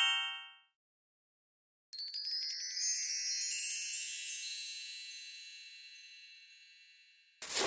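Chime sound effect: a bright ringing tone fades out, then about two seconds in a shimmering cascade of many high chimes, like a wind chime, rings out and slowly dies away over about five seconds.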